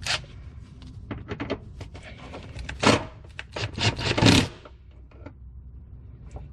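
Socket wrench tightening the running-board mounting bolts: quick ratchet clicks and short metal scrapes, loudest about three and four seconds in.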